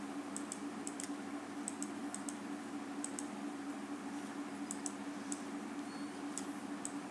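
Irregular sharp clicks from a computer mouse and keyboard, many in quick pairs, over a steady low hum.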